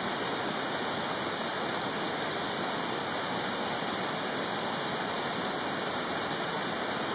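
Mountain stream running: a steady, unbroken hiss of flowing water.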